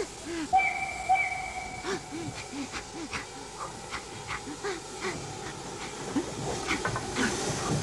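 Steam locomotive standing at a platform: a short, steady whistle about half a second in, and steam hissing that grows louder near the end. A string of short low sounds and light clicks runs through it.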